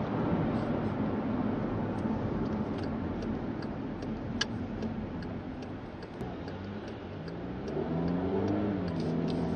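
Inside a car: steady tyre and road noise as it slows from highway speed. From about two-thirds of the way in, the engine note rises in pitch as the car pulls away slowly through a roundabout, then holds steady. A light regular ticking, the turn indicator, runs underneath.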